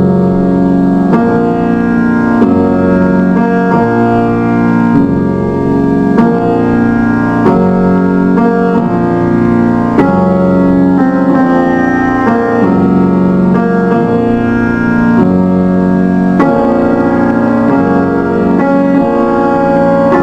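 Background music: slow sustained chords, each held about a second before the next.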